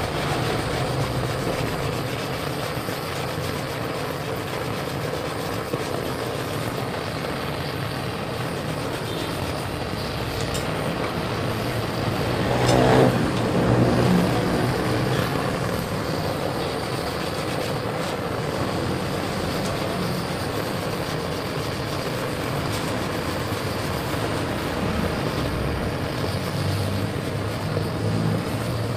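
Hand-held butane gas torch burning with a steady hiss while a wire brush scrubs softened paint and thick body filler off a steel motorcycle fuel tank. About halfway through, a louder engine-like sound swells and fades over a couple of seconds.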